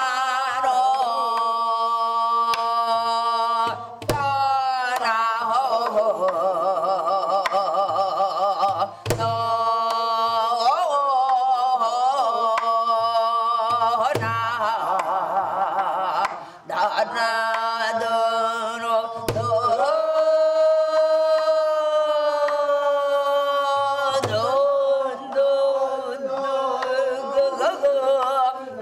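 Korean traditional vocal music: a woman's high voice sings long held notes with a wide, heavy vibrato over steady drone tones. A deep drum stroke falls about every five seconds.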